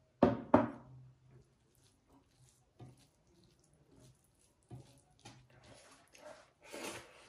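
Glass bowl set down on a wooden table with two sharp knocks, then soft, wet squishing of fingers mixing rice with dal on a metal plate.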